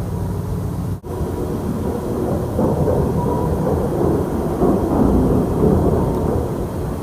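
A deep, rolling rumble like distant thunder, one of the unexplained 'strange sky sounds'. It drops out for an instant about a second in, then swells louder through the rest.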